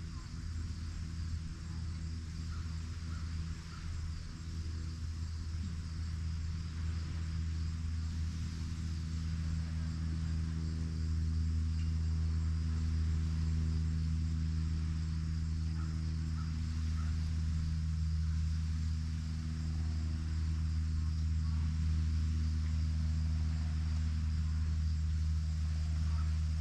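Insects trilling steadily in the evening over a steady low motor hum that gets louder about ten seconds in.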